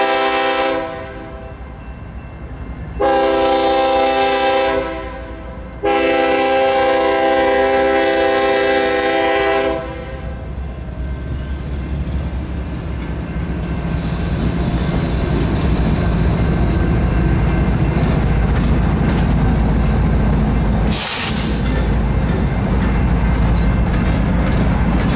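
BNSF diesel locomotives sounding their multi-note horn in three blasts for the crossing: one ending about a second in, one about two seconds long, then a longer one of about four seconds. Then the diesel engines rumble and the wheels clatter over the rails as the locomotives pass, with a brief hiss near the end.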